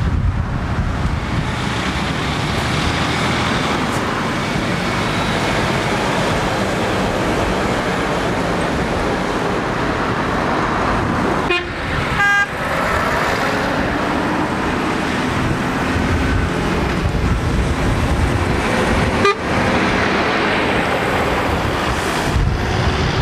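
Road traffic: container trucks and cars driving through a roundabout, a steady wash of engine and tyre noise. A short horn toot sounds about halfway, and the noise breaks off abruptly twice.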